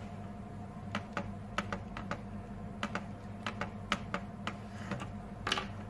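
Buttons of a Casio scientific calculator being pressed: a string of about fifteen short, irregular clicks as a calculation is keyed in.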